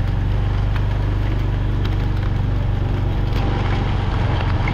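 Motorbike engine running steadily while riding slowly on a muddy dirt road, with rain and wind noise and scattered raindrop ticks over it.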